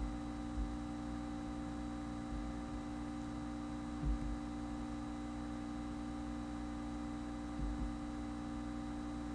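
Steady electrical hum with several fixed tones over a faint hiss, the background noise of the recording setup, broken by a few faint low bumps.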